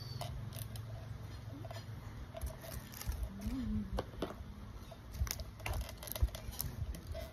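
Scattered light clicks and taps of small plastic toy pieces and packaging being handled, with a brief hum of a child's voice about halfway through.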